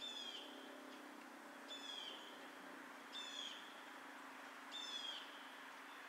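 An animal calling four times, about a second and a half apart: each call is short, high and slides downward. A faint steady low hum runs underneath.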